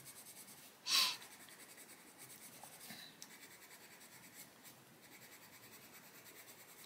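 Coloured pencil shading on the paper of a colouring book, a faint steady scratching. About a second in, a single short, harsh bird call cuts in loudly, with a fainter sound about two seconds later.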